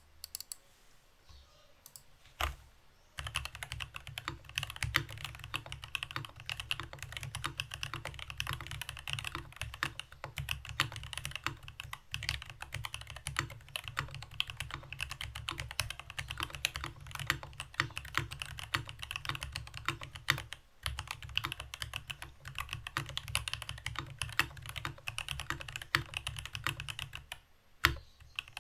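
Typing on a mechanical keyboard with stock NK Silk Black linear switches, a brass plate and GMK keycaps. A few single key presses are followed, about three seconds in, by fast continuous typing. The typing breaks off briefly about two-thirds of the way through and again shortly before the end.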